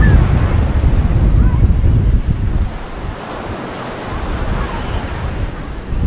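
Wind buffeting the microphone, a heavy low rumble, over the steady wash of surf breaking on a sandy beach. The wind rumble drops off sharply about halfway through.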